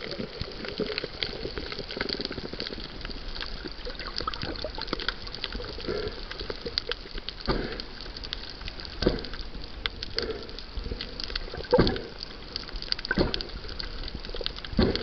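Underwater sound as heard by a camera below the surface: a muffled water rush crowded with small clicks and crackles, and several louder dull thumps in the second half.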